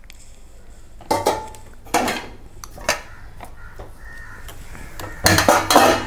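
Crows cawing: a few separate harsh calls, then two close together near the end.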